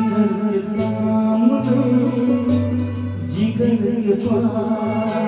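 Instrumental introduction of a Hindi film song, with sustained melodic notes over a steady bass line, leading into the sung verse.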